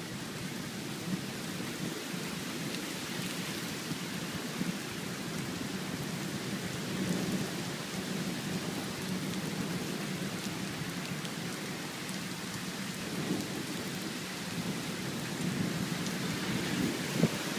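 Steady heavy rain falling in a thunderstorm, an even hiss and patter.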